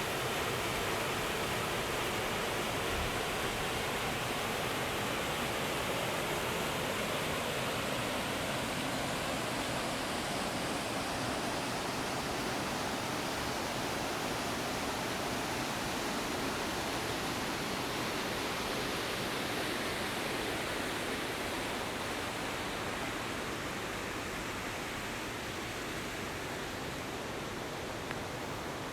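Rushing water of a forest stream or small waterfall, a steady even rush that grows slightly fainter near the end.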